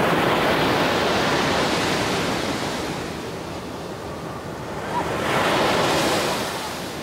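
Ocean surf breaking and washing up a sandy beach. One surge is loud at the start and fades, then another wave swells about five seconds in and eases off.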